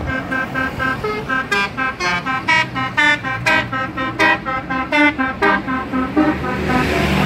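Bus 'telolet' horn, a multi-tone musical air horn, playing a quick tune of short, bright notes, about three a second. Near the end a rushing noise swells up under it.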